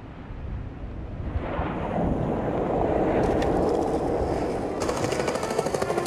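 Skateboard wheels rolling on pavement: a rumble that grows louder from about a second and a half in, joined in the second half by a rapid run of crackling clicks.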